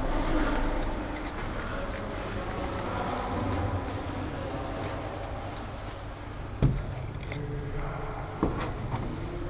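Steady low rumbling background noise with two sharp knocks or pops near the end, about two seconds apart.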